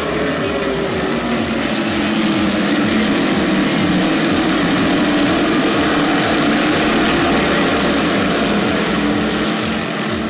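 A field of dirt modified race cars running together around the dirt oval at pace speed before the start, their engines droning as a pack. The sound swells as the cars come around nearer, then eases off near the end.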